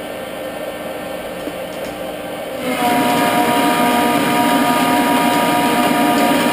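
Metal lathe running through a facing cut. About two and a half seconds in the sound gets louder and a steady whine joins in.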